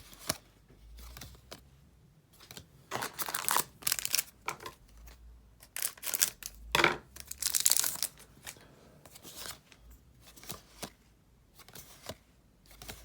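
A trading-card booster pack's wrapper being torn open and crinkled in hand, in several short rustling bursts; the biggest come about three to four and seven to eight seconds in.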